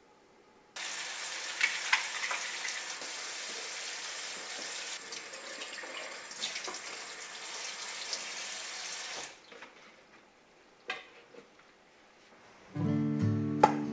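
Kitchen tap running into the sink, a steady splashing hiss as items are rinsed under it, that stops about nine seconds in. A few light knocks follow, then acoustic guitar music starts near the end.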